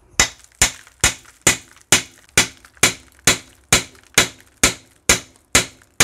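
Hammer blows on a drift driving a tight kingpin out of a Citroën 2CV front suspension arm: steady, evenly spaced metal-on-metal strikes, about two a second, each a sharp crack with a brief ring.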